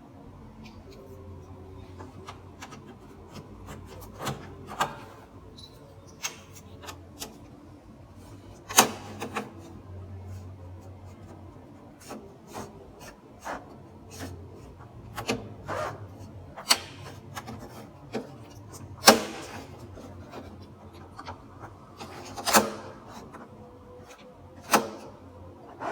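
Handling noises from work on an all-in-one PC: scattered clicks and taps with rubbing between them, and a few louder knocks.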